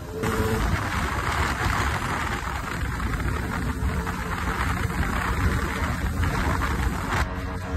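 Wind rushing over the camera microphone on a moving two-stroke KTM supermoto motorcycle, with the engine running underneath; the rush dips briefly near the end.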